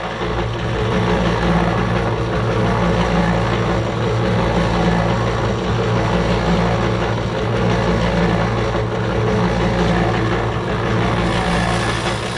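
Electric cement mixer running steadily with a low hum, its drum tumbling a load of dry dirt that is being heated and mixed with trap wax.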